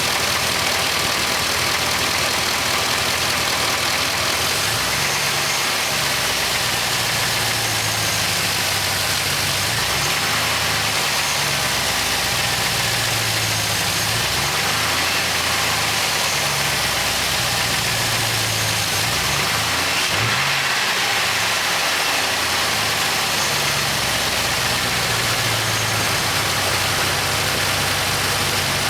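2006 Trailblazer SS's 6.0 L LS2 V8 idling steadily after a cold start, an engine whose cold-start knock the owner identifies as piston slap.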